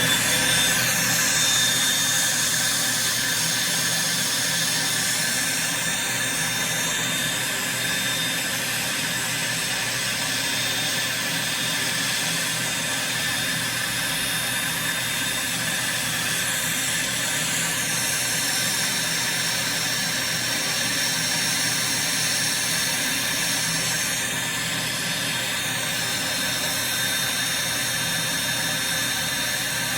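Podiatry micromotor nail drill and its built-in dust-extraction fan running together with a steady high whir, sucking up talc powder; the extractor's whine reaches full speed just at the start, and the pitch dips briefly a few times.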